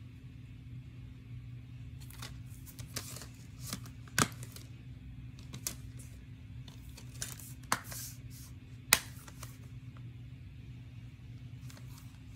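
A plastic DVD case handled and turned over in the hands: rustling with a series of sharp clicks and taps, the loudest about four and nine seconds in, over a steady low hum.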